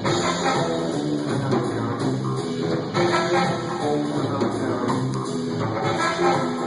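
Live rock band playing at a sound check: guitar, bass and drums.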